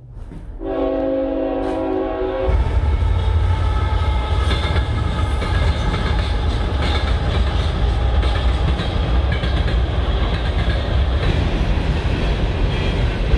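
Train horn sounding a chord for about two seconds, then the loud, steady rumble and rattle of a train passing close by.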